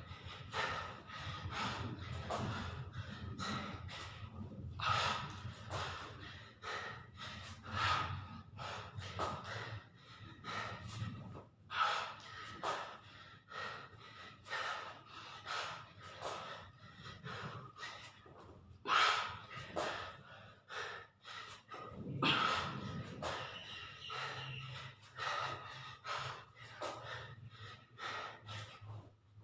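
A man breathing hard and fast, about two to three breaths a second, with a few louder breaths in between. He is out of breath from a set of push-ups.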